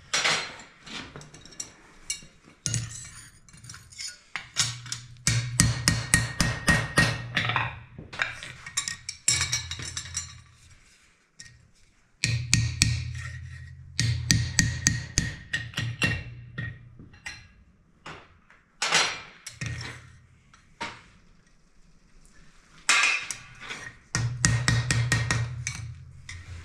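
Hammer blows on hot iron at the anvil in quick runs of strikes, each run lasting a couple of seconds with short pauses between.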